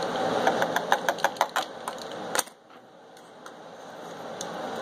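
A plastic measuring spoon knocking rapidly against the neck of a plastic water jug as a quarter teaspoon of pH down is tapped into the water, about five or six clicks a second. The clicking stops suddenly about two and a half seconds in, leaving a low hiss.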